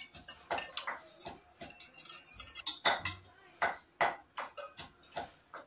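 Scattered light metal clinks and taps of a wire whisk and a steel pot of whisked yogurt being handled, with a dull thump about three seconds in.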